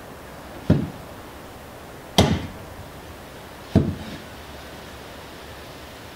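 A spade being driven into garden soil, three sharp strikes about a second and a half apart, each with a short tail.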